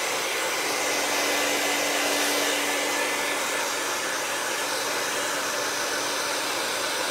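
Hand-held hair dryer blowing steadily, a loud even rush of air with a faint steady hum under it, drying freshly applied chalk ink on fabric before it is heat-set.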